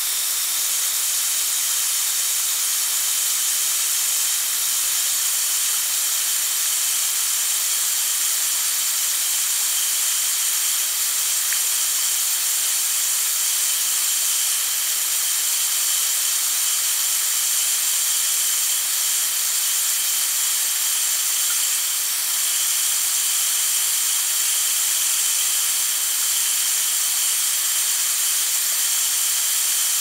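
Water spraying under pressure from a leaking pipe: a steady, high-pitched hiss.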